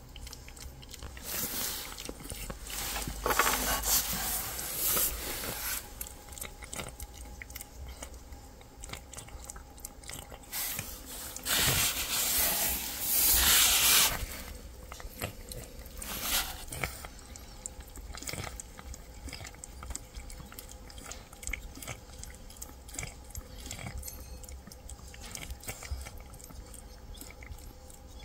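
Cats chewing wet food from bowls: a steady run of small, quick, wet clicks. Louder noisy scuffs come about two to five seconds in and again around twelve to fourteen seconds in, the loudest part.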